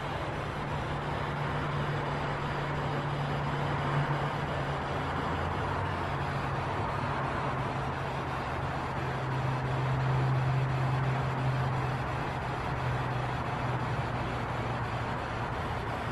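Steady rushing noise with a low, wavering hum underneath, swelling slightly about two-thirds of the way through; no knocks or impacts.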